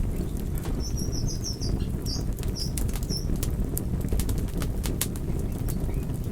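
Campfire burning: a low, fluttering rumble of flames with frequent sharp crackles and pops. A quick run of short, high chirps sounds about a second in and lasts a couple of seconds.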